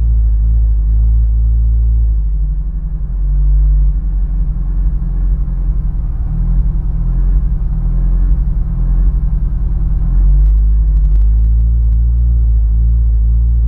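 Honda S2000 four-cylinder engine idling, its beat turning uneven and stumbling from about two seconds in and steadying again near ten seconds: a misfire that persists despite new spark plugs.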